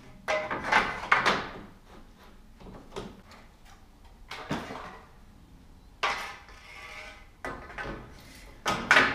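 Lengths of metal C-channel being handled and slid along solar panel frames: a series of scraping, sliding clatters a second or two apart, the loudest just after the start and near the end.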